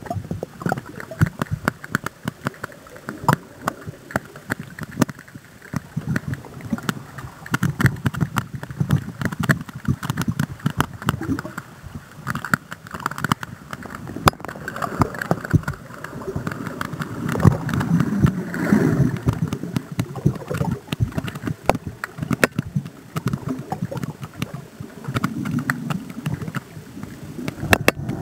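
Water noise picked up by an underwater camera on a landing-net pole: an uneven rush and rumble of moving water, with dense irregular clicks and knocks throughout.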